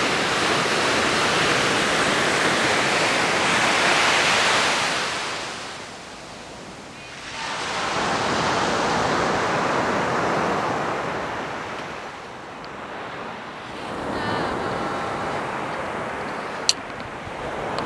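Ocean surf washing onto a sandy beach, swelling and easing every few seconds, with a single sharp click near the end.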